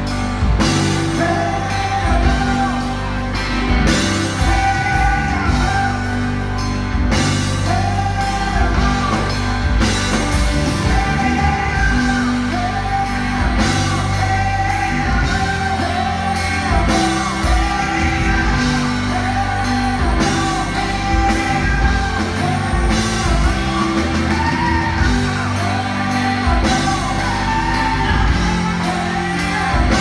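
Live rock band playing: a man sings lead over electric guitar, bass guitar and drums.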